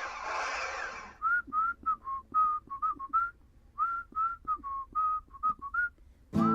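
A rushing noise for about the first second, then a whistled melody in two short phrases of about eight notes each, with a brief pause between them.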